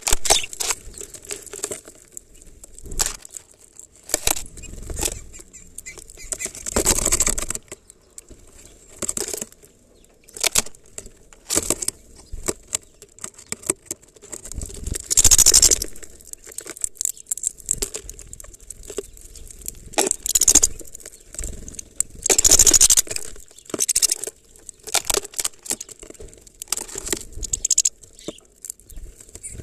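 Small bird pecking and rummaging among sunflower seeds in a plastic-bottle feeder: irregular sharp taps and seed rattles against the plastic, with a few louder rustling bursts about a second long.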